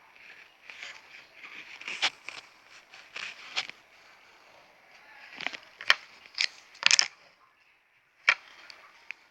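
Hands handling plastic packaging: crinkling and rustling broken by several sharp clicks and snaps, the loudest a cluster about six to seven seconds in and one more a second later.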